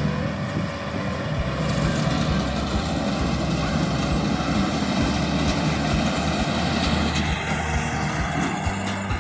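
Kubota DC104 combine harvester running steadily, its diesel engine droning under a dense mechanical noise.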